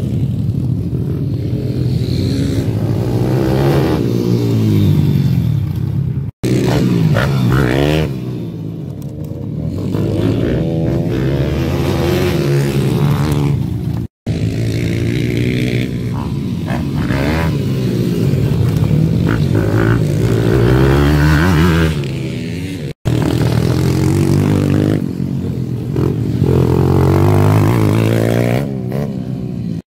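Pit bike engines revving up and down as they ride round a dirt track, the pitch rising and falling again and again with the throttle. The sound drops out suddenly three times, for an instant each.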